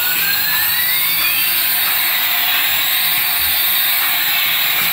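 Small toy helicopter's electric rotor motors whining with a steady high hiss. In the first second and a half two whining tones glide toward each other, one rising and one falling, as the motor speeds change.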